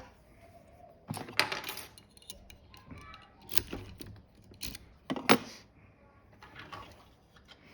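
Metallic clinks and rattles of a lock and its lockpicking tools being handled: a run of jingling clatter about a second in, then single sharp clicks now and again.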